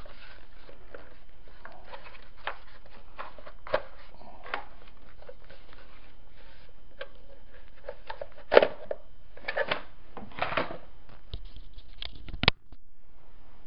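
Parts of a G&G F2000 airsoft rifle being handled as its motor is worked out: scattered rustling, scraping and small clicks. A sharp click comes past the middle, and another comes shortly before the end.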